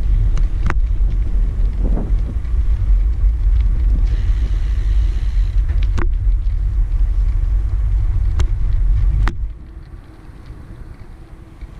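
Heavy wind buffeting the microphone while riding an e-bike, a loud low rumble with a few sharp ticks. It cuts off abruptly about nine seconds in, leaving a much quieter background.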